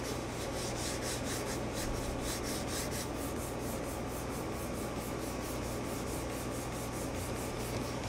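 Play-Doh being worked by hand, flattened and rolled out: a soft, steady rubbing with several strokes a second.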